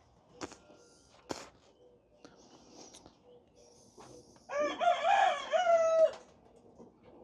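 A rooster crowing once, a single long call of about a second and a half, well over a second in. Two sharp clicks come before it, in the first second or so.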